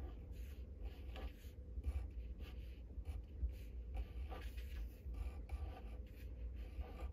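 Pen scratching on paper, faint, in short irregular strokes as printed letters are traced in a paper booklet, over a low steady rumble.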